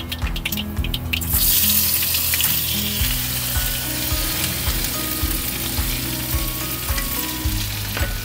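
Chopped okra tipped into hot oil in a steel bowl on a gas camping stove, starting to sizzle about a second in and frying steadily after that, over background music with a steady beat.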